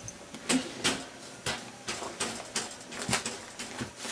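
A series of about nine sharp knocks or taps, unevenly spaced over four seconds.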